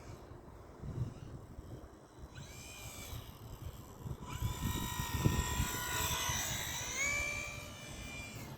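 RC model plane's motor and propeller whining as the plane flies, coming in about two seconds in and growing louder a couple of seconds later. The pitch shifts near the end as the throttle changes. Low, uneven rumble sits beneath it.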